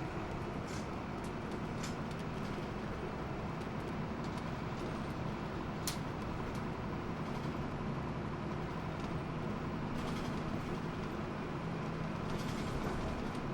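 Hino Blue Ribbon II city bus under way, heard from inside the cabin: a steady diesel engine drone over road noise. A single sharp click comes about six seconds in.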